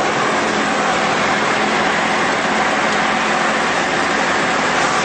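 Steady drone of a Tecnam Sierra light aircraft's Rotax 912 four-cylinder engine and propeller in flight, heard inside the cockpit along with the rush of air over the cabin.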